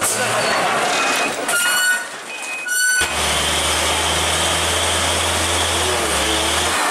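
Heavy diesel trucks working on a broken dirt road, heard in short cuts; two short high-pitched squeals come around the second and third seconds. From about three seconds in, a container truck's diesel engine runs with a steady low drone as it climbs the rough road.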